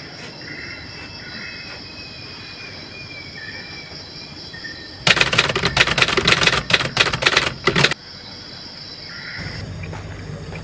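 Typewriter keystroke sound effect: a rapid run of loud clicks lasting about three seconds in the middle. Around it is faint forest ambience with short bird chirps and a steady high insect whine.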